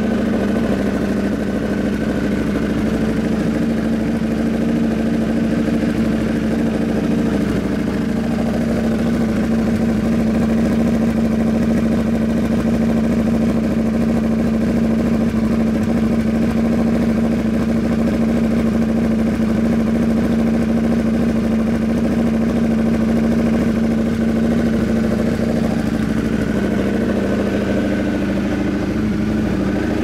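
Indian FTR 1200's V-twin idling steadily through a Toce low-mount full exhaust system with its dB killer fitted.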